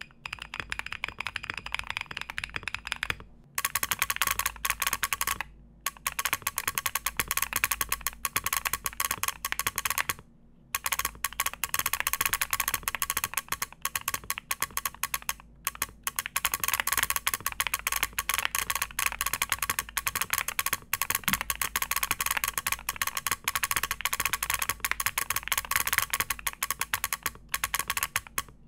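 Fast typing on an MM Studio Class80 R2 mechanical keyboard with Bolsa Laguna Blue switches and PBT keycaps. For the first three seconds the keyboard's buzzer beeps along with the keystrokes; after a short pause a solenoid clacks with every keypress, with brief pauses a few times.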